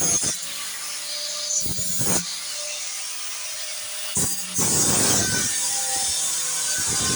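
Sheet-metal cutting and grinding work: irregular rasping strokes over a steady high hiss.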